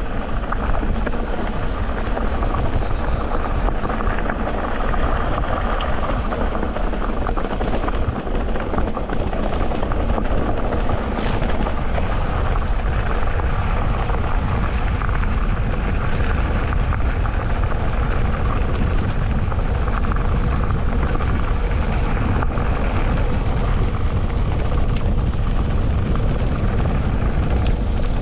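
Steady rushing rumble of an electric mountain bike ridden along a dirt trail, picked up by a bike-mounted action camera: tyres rolling over the ground and the frame shaking, heaviest in the low end.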